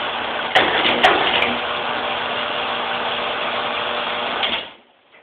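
Old Otis freight elevator relay controller in operation: contactors clack in about half a second and a second in, under a steady electrical hum and buzz from the running equipment. The sound cuts off suddenly near the end as the contactors drop out, and one of them arcs as it pulls away.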